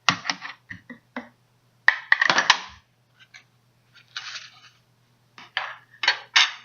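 Small fidget spinner case being worked open by hand: a string of irregular clicks, clatters and scrapes of hard plastic in short bursts.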